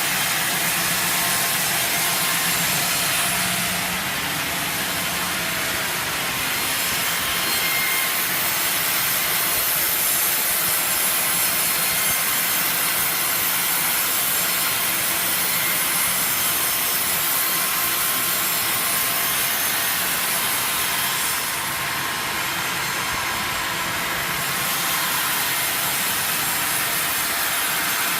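Sawmill saw cutting steadily through wood, a continuous noise that eases slightly twice.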